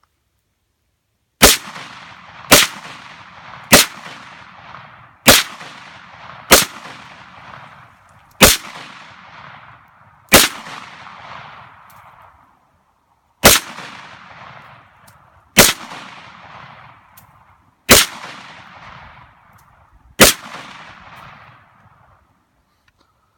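A gun fired eleven single shots, one to three seconds apart, each crack followed by a long rolling echo.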